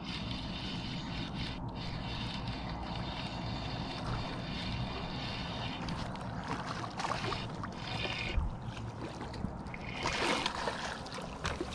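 Spinning reel being cranked steadily as a hooked pike is reeled in, with brief splashes and swirls from the fish at the surface, the loudest around two-thirds of the way through.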